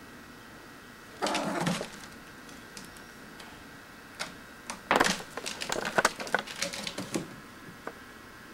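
Cat's claws raking and gripping a sisal-rope scratching post as a young Siamese climbs it: a short rasp about a second in, then a run of quick scratchy clicks from about four to seven seconds in.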